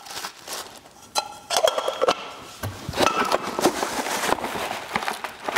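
Plastic packaging crinkling and rustling as it is handled and opened, with many small clicks and crackles.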